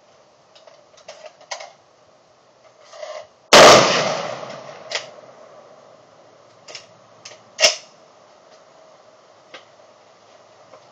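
A single loud rifle shot about three and a half seconds in, with a long echoing tail, and a second, shorter sharp crack near eight seconds. Small clicks and knocks come before and between them.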